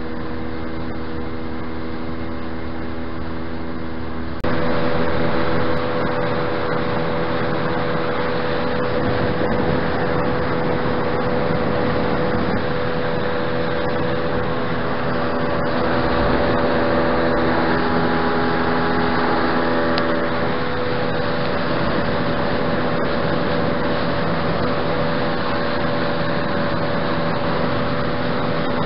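Tohatsu outboard motor running steadily with the boat under way, with water and wind noise under the engine. The sound steps up in level about four seconds in and then holds steady.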